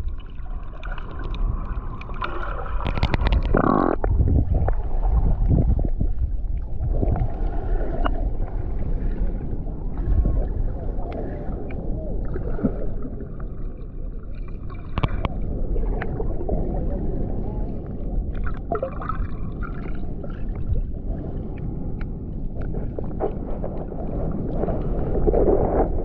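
Water heard underwater: a steady, muffled rush and gurgle, with scattered sharp clicks and knocks.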